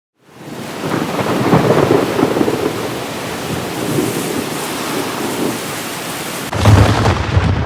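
Heavy rain falling with thunder rumbling; a louder, deeper roll of thunder breaks in about six and a half seconds in.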